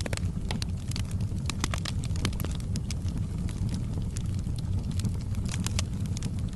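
Wood fire in a fireplace crackling, with frequent sharp pops and snaps at irregular intervals over a steady low rumble.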